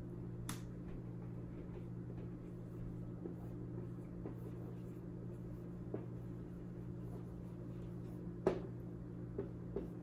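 Dry-erase marker writing on a whiteboard: faint strokes with a sharp click about half a second in as the marker is uncapped, and a few taps near the end. A steady low hum runs underneath.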